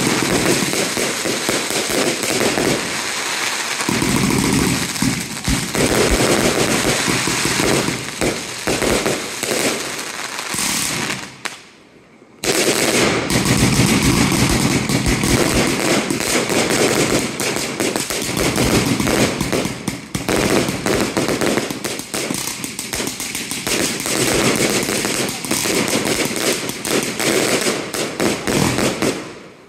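Pyro+Papel firework cake firing: a dense run of rapid shots and crackling bursts. It breaks off briefly about twelve seconds in, then goes on again until just before the end.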